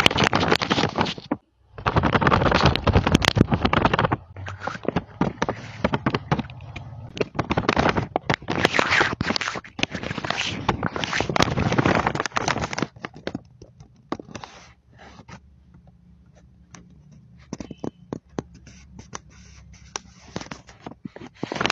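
Fingers scratching, rubbing and tapping on a sheet of paper, with the paper crinkling. Long stretches of loud scratching fill the first two thirds, then it thins to quieter, scattered taps.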